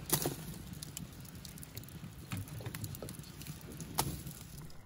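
Wood fire crackling while sticks are pushed into the burning firebox, with two louder sharp cracks, one just after the start and one about four seconds in.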